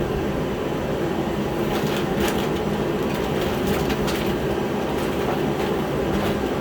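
Steady drone of a running heater, with a few faint clicks near the middle.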